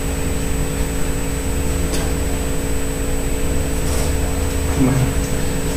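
Steady room hum: a low rumble with two faint even tones running through it, and a faint click about two seconds in.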